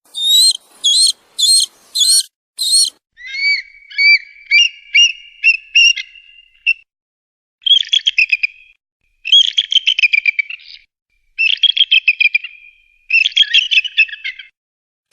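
Eagle calling: about five high, sharp piping notes, then a run of quick chittering notes over a held whistle, then four bursts of rapid chattering trills separated by short pauses.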